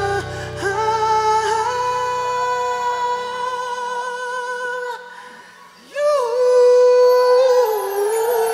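Closing passage of a live pop ballad: a male lead singer holds long, high notes over sustained band chords, and the bass drops out after a few seconds. About five seconds in the sound falls away briefly, then he comes back loud on a final held note that wavers with vibrato.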